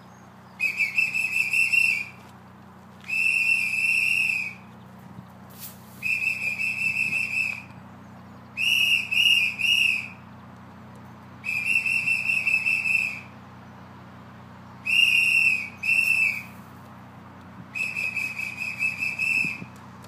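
A trilling whistle blown seven times in blasts of about one and a half seconds, roughly every two and a half seconds, calling a homing racing pigeon into the loft trap. A single short click comes between the second and third blasts.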